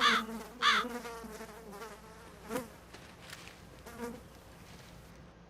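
A fly buzzing close by, its pitch wavering, with a crow cawing: two loud caws about a second in, then two fainter ones later.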